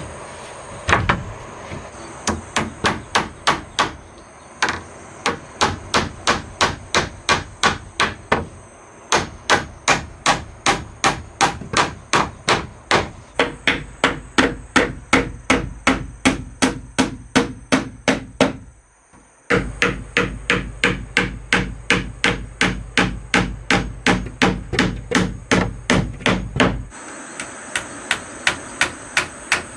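Claw hammer driving nails into a wooden strip along the base of a plank wall, in quick, steady strokes of about three a second, with a short break a little past halfway.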